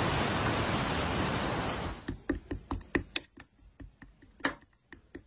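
A steady hiss like static for about two seconds cuts off. It is followed by soft, irregular clicks and pops from white, fluffy slime being pressed and poked in a bowl.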